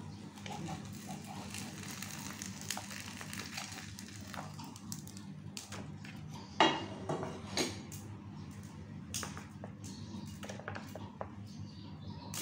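A nonstick frying pan and a spoon knock and scrape as a thin risol skin is turned out onto a plastic plate. Scattered clicks come throughout, with one louder clatter about halfway through, over a steady low hum.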